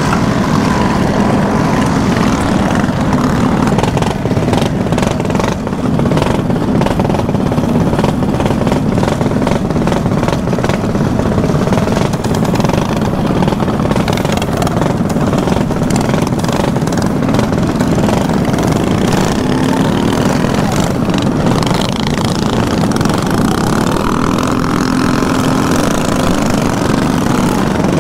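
Mini bikes' small single-cylinder engines running as the group rides, heard up close from a helmet-mounted camera on one of the bikes. The engine note rises and falls under a dense rush of noise.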